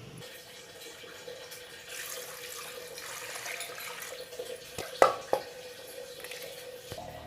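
Water running, as from a kitchen tap, with a few sharp clinks about five seconds in.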